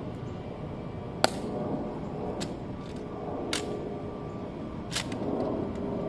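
Sharp clicks and slaps of a sentinel's rifle drill as the rifle is brought off one shoulder, up in front and onto the other shoulder. There are four of them, a little over a second apart, and the first is the loudest.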